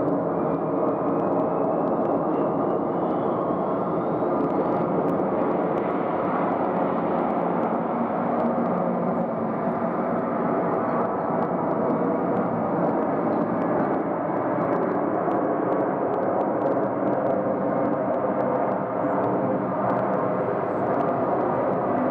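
Jet engines of a Boeing 767-300ER airliner running on the runway, a steady even rumble heard from a distance. A faint whine rises in pitch over the first few seconds.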